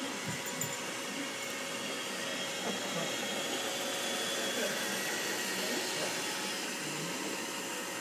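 Roomba robot vacuum running across carpet: a steady whirring of its motor and brushes.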